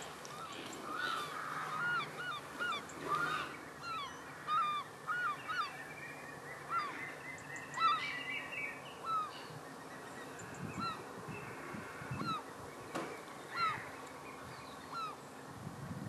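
A flock of birds calling: many short, hooked calls repeated over and over, coming several a second at first, then more spread out.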